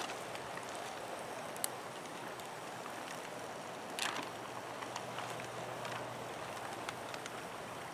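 A small brook running steadily over stones, with a faint click a little under two seconds in and a short noise about four seconds in.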